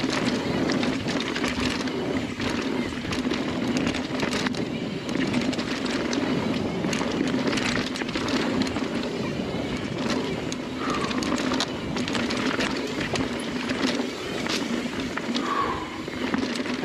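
Mountain bike riding fast down a dirt singletrack: a steady rolling rumble from the tyres on the trail, broken by frequent knocks and rattles from the bike over rough ground.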